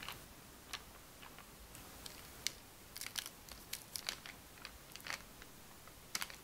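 A metal spoon clicking and tapping lightly as truffle balls are coated in melted white chocolate and set down on a paper-lined baking sheet: scattered small clicks, busiest in the middle, with a quick pair near the end.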